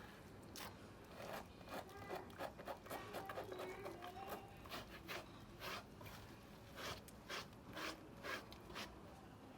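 Hands scrubbing a dog's soapy coat during a bath: a run of short, irregular rubbing and scraping strokes.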